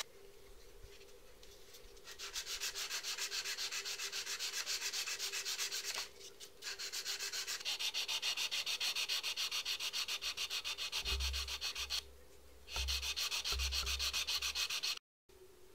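A wooden cross blank being hand-sanded along its edge with a small sanding block: quick, even back-and-forth rubbing strokes that stop briefly twice.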